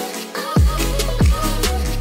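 Electronic background music with a steady beat of deep kick drums that drop in pitch, a bass line and hi-hat ticks. The bass drops out for about half a second at the start.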